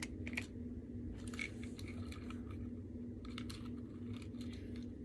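Textured Tangle twist fidget toy being twisted in the hands, its plastic segments clicking and ticking irregularly, over a faint steady hum.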